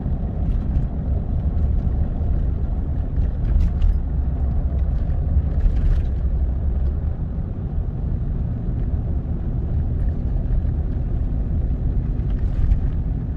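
Ford F-250 pickup driving at steady road speed, heard from inside the cab: a continuous deep rumble of engine and tyre noise.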